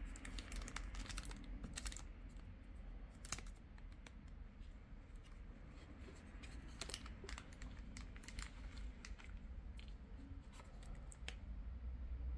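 Plastic wrapping crinkling and rustling, with scattered sharp clicks and taps as hands turn the plastic clock radio over, the clicks thickest near the start and again in the second half.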